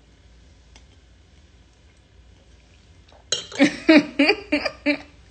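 Faint clinks of a wine glass over quiet room tone. About three seconds in, a woman's voice makes a quick, loud string of wordless vocal sounds, lasting under two seconds.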